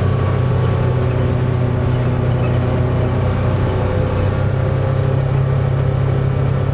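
Polaris Ranger side-by-side's engine running steadily under way, a loud, even hum with no change in pitch.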